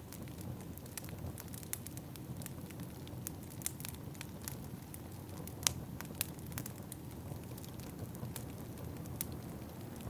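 Wood fire crackling in a fireplace: irregular sharp pops and snaps, the loudest about halfway through, over a steady low rumble.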